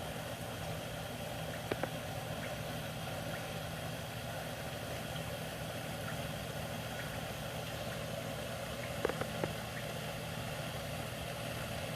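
Newly installed sump pump running steadily, its electric motor humming as it pumps water out of the pit, with a few small clicks about two seconds in and again around nine seconds.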